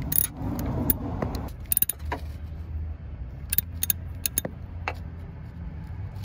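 Hand ratchet with a 7 mm socket tightening small ignition control module screws: scattered sharp metallic clicks and clinks, some in quick clusters, over a low steady hum.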